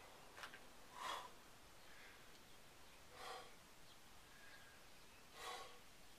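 A man breathing hard, with about four forceful breaths out a second or two apart, as he catches his breath between sets of burpees.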